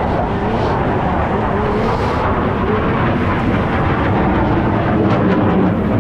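Two-stroke racing snowmobile engines running hard on the track, the pitch wavering up and down as the riders work the throttle.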